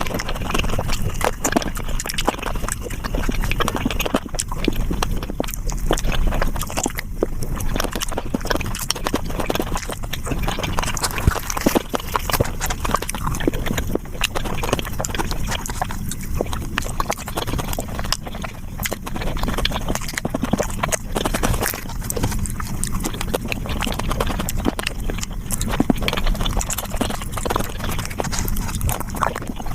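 Close-miked eating sounds played back at high speed: a dense, unbroken run of quick wet clicks and smacks from chewing flatbread and curry.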